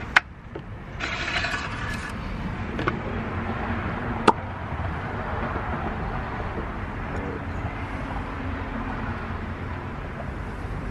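Steady outdoor background noise with two sharp clicks, one just after the start and another about four seconds later.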